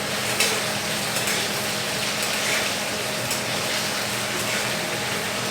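Diced potatoes frying in oil in a pan on a low flame: a steady sizzle with a sharp tick about once a second.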